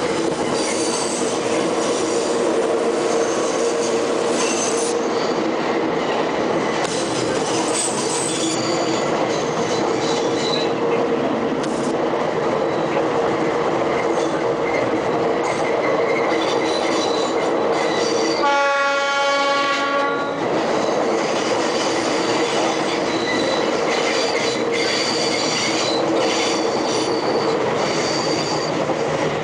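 Metre-gauge diesel-hauled train running, heard from an open coach door: a steady drone of wheels and rail noise. Past the middle the locomotive's horn sounds once for about two seconds.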